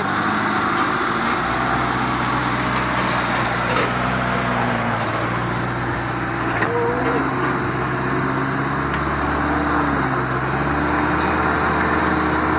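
Pickup truck engine running and revving, its pitch rising and falling, as it strains under load to climb a slippery slope it cannot get up.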